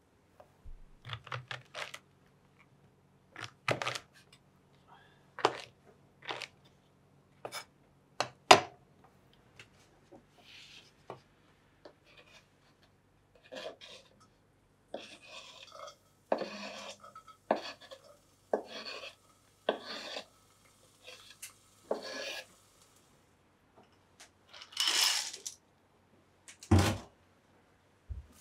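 Kitchen cooking sounds: a string of separate knocks and clinks of cookware and wooden utensils, with a few short scraping, sliding noises as sliced mushrooms are pushed off a wooden cutting board into an enamel pot. A faint low hum runs underneath.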